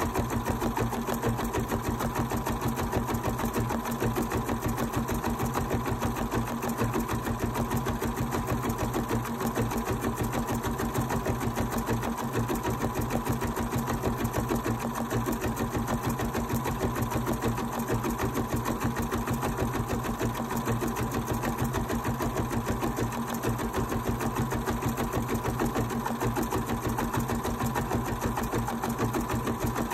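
A Bernina 790 embroidery machine stitching out an appliqué design. The needle runs in a steady, rapid rhythm as the hoop moves the fabric.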